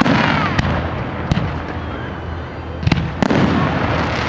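Fireworks display: a string of sharp bangs from bursting shells over a continuous rumble, with the loudest pair of bangs about three seconds in.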